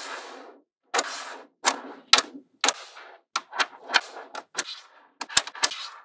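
Small magnetic balls clicking and rattling as strips of them are snapped together into a flat panel: a string of sharp clacks and short rattles at uneven intervals.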